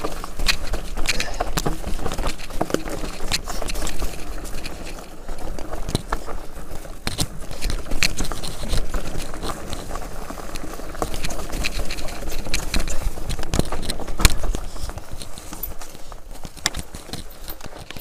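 Enduro mountain bike rolling down a rocky, gravelly singletrack: tyres crunching and scraping over loose stones, with frequent knocks and rattles as the bike strikes rocks, a few of them sharper and louder.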